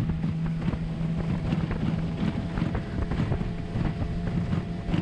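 Small aluminium boat's motor running steadily under way, its low hum easing slightly about two seconds in, with wind buffeting the microphone and short knocks of chop against the hull.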